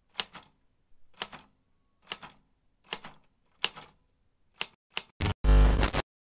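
Manual typewriter keys striking the paper one at a time, slowly and under a second apart, then a few quicker strikes, ending in a louder rattling burst about half a second long.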